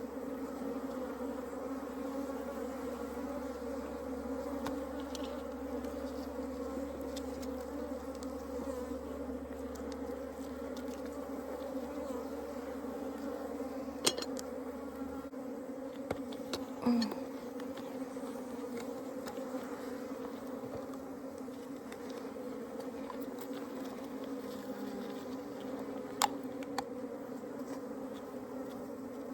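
A mass of honeybees buzzing in a steady, dense hum, with a few sharp clicks about halfway through and near the end.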